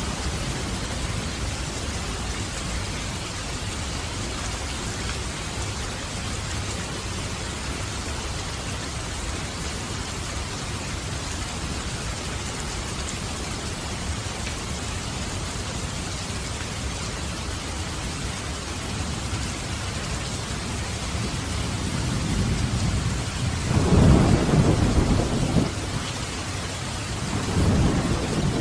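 Steady rain falling, with a peal of thunder building up near the end and rumbling loudest for a couple of seconds, followed by a second rumble of thunder at the very end.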